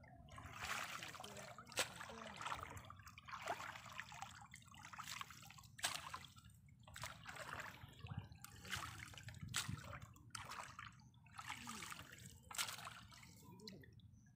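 Hands stirring and scooping shallow muddy water inside a fine-mesh fishing net: irregular sloshing and trickling, with a couple of sudden, sharper sounds.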